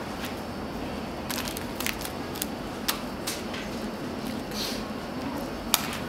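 Scattered light clicks and crackles of a kitten's claws and paws scrabbling on a woven wicker chair while it plays with a toy wand, a handful in all with the sharpest one near the end, over a steady background hiss.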